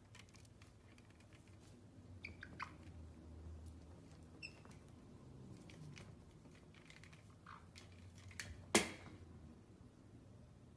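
Pet caique parrots hopping and scuffling on a fabric ottoman: faint taps and scratches, a few short squeaky chirps, one of them falling in pitch, and one sharp click near the end.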